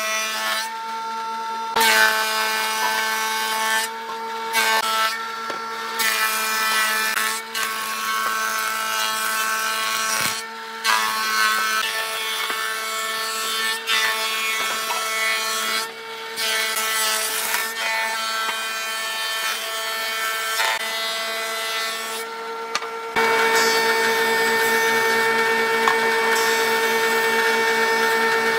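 Combination jointer-thickness planer running with a steady whine, its spinning cutterhead planing wooden boards as they are fed through, with stretches of noisy cutting. The sound breaks off sharply several times and is steadier and louder near the end.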